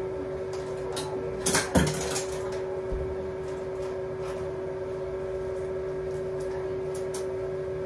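A short clatter of shower curtain and toiletries being handled in a hotel tub-shower about a second and a half in, followed by a few light clicks, over a steady low hum.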